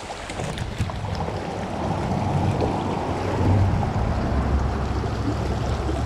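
Shallow creek water rushing over rocks, under a heavy low rumble on the microphone that builds about a second in and grows a little louder.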